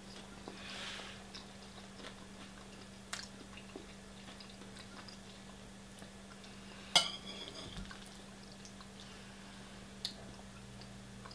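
Quiet chewing of a mouthful of rice-and-barley paella, with a few sharp clicks of a metal spoon on a ceramic plate as it scoops; the loudest click comes about seven seconds in. A faint steady low hum runs underneath.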